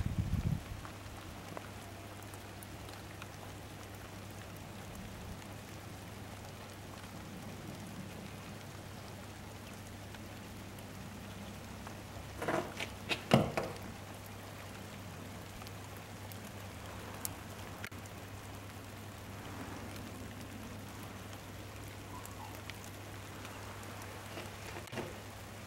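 Light rain falling: a steady, soft hiss of drops, with a quick run of sharp taps about halfway through and a faint steady low hum underneath.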